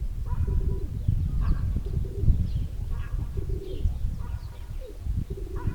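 Domestic pigeons cooing, several short phrases a second or two apart, over a steady low rumble.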